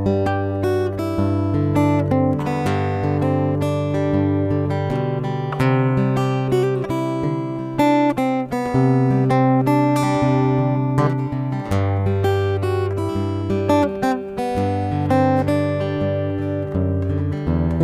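Background music: an acoustic guitar playing plucked notes over held bass notes.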